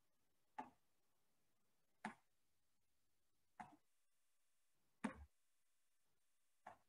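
Five short, soft sounds about a second and a half apart, one with each switch of the legs as a person does scissor kicks on a floor mat, over near silence. The fourth of them is the loudest.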